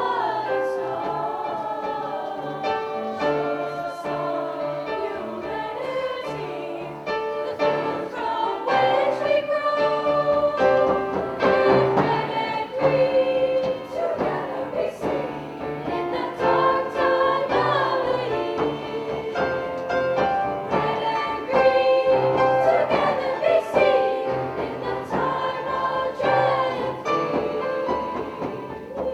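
A high school women's choir singing a sustained, multi-part piece.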